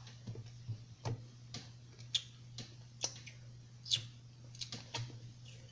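Light, sharp clicks and taps coming irregularly at about two a second, over a steady low hum.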